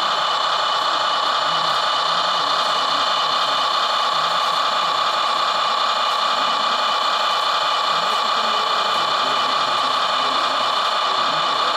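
Steady, unchanging mechanical whir with a humming tone from radio-controlled model construction machines at work, a model wheel loader loading a model truck.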